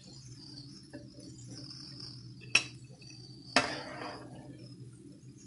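Steel slotted spoon clinking against the pan and plate while fried cashews are lifted out of hot oil: a light tap about a second in, then two sharp clinks about a second apart, the second ringing briefly. Under it runs a faint steady sizzle of the frying oil.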